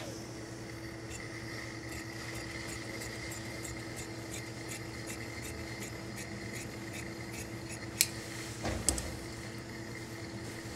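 Large tailor's shears snipping through coat lining fabric in a run of quick cuts, about three a second, to trim off the excess lining. Near the end comes a sharp click, then a knock.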